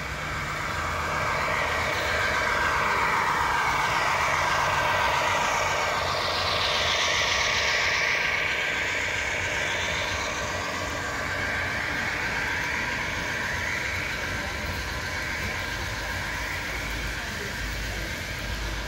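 HO-scale model coal train running past: the MTH Union Pacific Dash-9's onboard diesel sound together with the rolling rumble and clatter of the coal hopper cars' wheels on the track. It swells about a second in, is loudest over the next several seconds as the locomotive and first cars pass, then settles into a steady run of hoppers.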